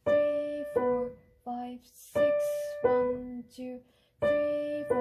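Steinway grand piano played with the right hand only: a slow single-line melody in phrases about two seconds apart, each a held note stepping down to shorter notes.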